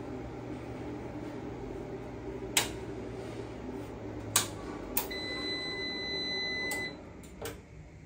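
A Fronus hybrid solar inverter hums steadily while switches click off three times. The inverter then gives one steady high beep of nearly two seconds, and its hum cuts off as it shuts down. A few more clicks follow.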